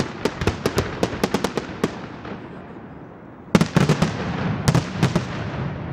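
Aerial fireworks exploding: rapid sharp bangs and crackles that thin out over the first two seconds, a short lull, then a sudden loud volley of bursts about three and a half seconds in over a low rumble.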